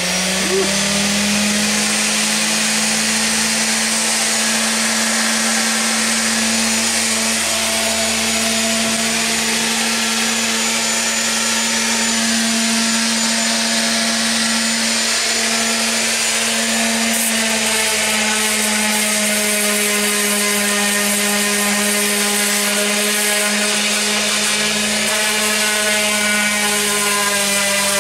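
Black & Decker electric rotary palm sander running steadily with an 80-grit disc, sanding old clear coat off wooden bench slats: a constant motor hum with a rough sanding hiss.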